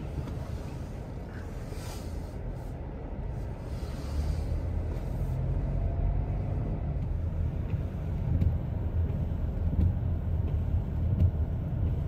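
Car driving: a low, steady rumble of engine and road noise that grows louder about four seconds in.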